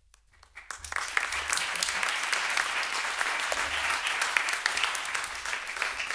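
Audience applause: many hands clapping, swelling within the first second, holding steady, then dying away near the end.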